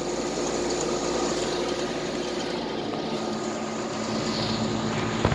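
2004 Tempstar central air conditioner's outdoor condensing unit running: a steady rush of air from its condenser fan with a low, even hum. A brief knock near the end.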